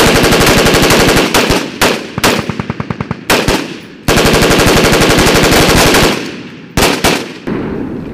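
Small-arms automatic gunfire: two long runs of rapid shots, each about two seconds, with short bursts and single shots between them. A last short burst comes near the end and its report dies away.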